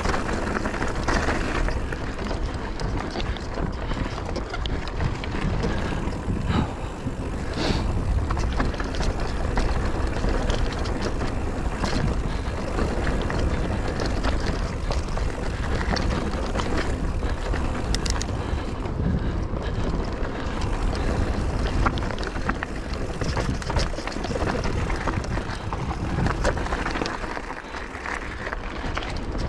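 Mountain bike riding a forest trail: tyres rolling over dirt and the bike clattering over bumps in many short knocks, over steady wind noise.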